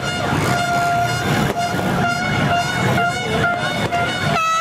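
Many horns tooting at once in a crowd, with several long held notes overlapping. Near the end come a few short blasts that sag in pitch.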